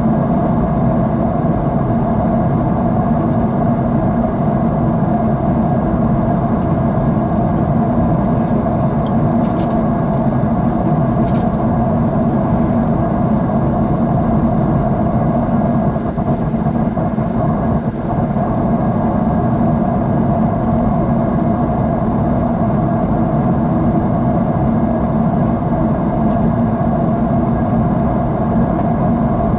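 Jet airliner engine noise heard inside the cabin in flight: a steady rumble and hiss with a constant low hum.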